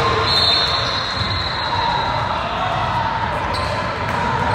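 A basketball bouncing on the court during a game, over a steady background din.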